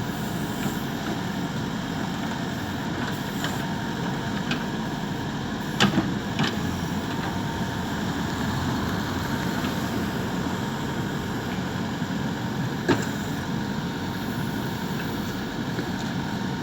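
Road-works machinery engine running steadily, with a few sharp knocks: a pair about six seconds in and another near thirteen seconds.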